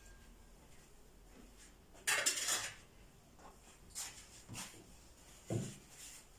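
A metal utensil scraping and clinking against a metal tray: one longer, loud scrape about two seconds in, then a few lighter knocks and clicks.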